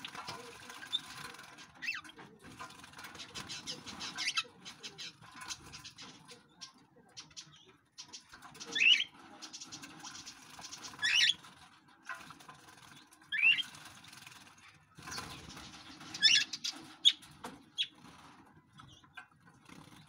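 Small aviary birds bathing in shallow water dishes: fluttering wings and splashing, broken by several short, sharp high calls.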